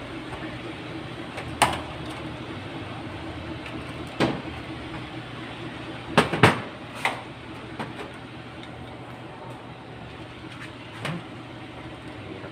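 Several sharp clicks and knocks of parts and wiring being handled on a workbench, one after another with a quick cluster in the middle, over a steady low hum.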